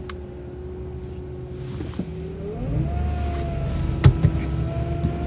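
City transit bus driving, heard from inside: a steady drivetrain whine that climbs in pitch about two and a half seconds in as the bus accelerates and its low engine rumble grows louder. A few sharp knocks ring out, the loudest about four seconds in.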